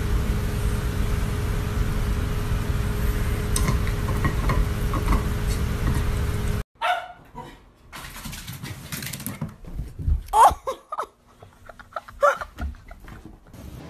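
A steady, loud rumbling noise that cuts off suddenly, then a small dog yipping several times in short, high cries while it tugs at a rope toy.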